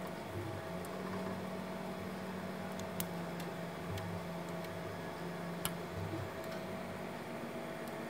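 Stepper motors of a home-built 3D printer whining in short moves that start and stop, over a steady hum, with two sharp clicks. This is the printer stepping between probe points during its auto bed-levelling run.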